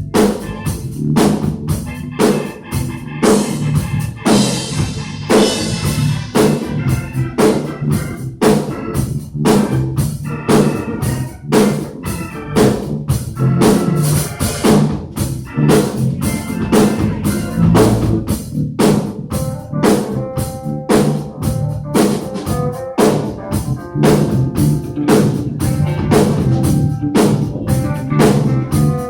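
A band playing: a drum kit keeps a steady beat of about two hits a second under sustained organ chords and a low bass line.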